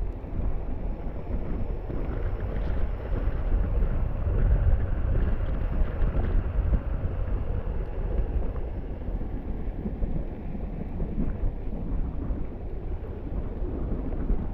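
Wind buffeting the microphone of a camera carried by a moving electric-unicycle rider: a low rumble that swells and dips.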